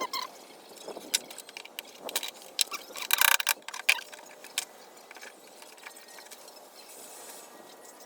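Scattered metallic clicks and clinks of tools and parts being handled, with a short harsh burst of noise about three seconds in.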